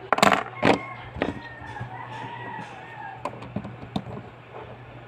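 Several sharp plastic clicks and knocks from handling Lego pieces and minifigures, and a rooster crowing in the background in one long call from about a second and a half in to about three seconds.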